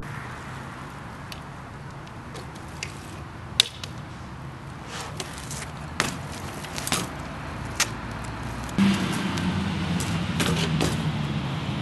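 BMX bike ridden on concrete: tyres rolling with irregular sharp clicks and knocks from the bike as the rider hops and sets up tricks. The rolling noise gets louder about three-quarters of the way through.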